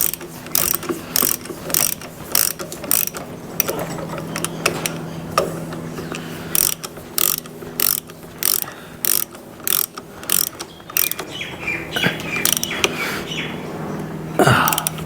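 Socket ratchet clicking as caliper mounting bolts are wound in, a short burst of clicks on each back-stroke, repeated about once or twice a second, with a steady low hum underneath.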